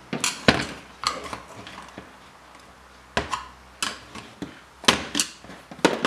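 Flathead screwdriver working the metal cover plate off a BMW E90 door lock actuator: about eight sharp metal clicks and knocks, irregularly spaced, as the plate is levered up slowly.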